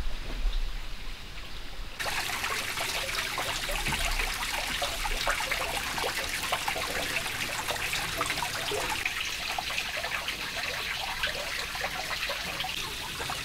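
Water trickling and splashing, a steady, busy patter that starts abruptly about two seconds in, after a low rumble.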